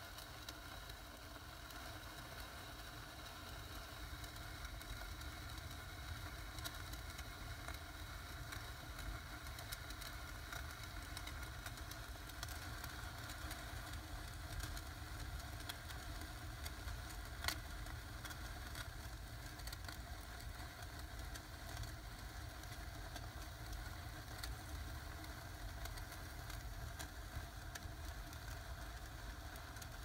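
Firework fountain burning in a fireplace: a steady rush of noise with scattered crackles of sparks, and one sharp crack a little past halfway.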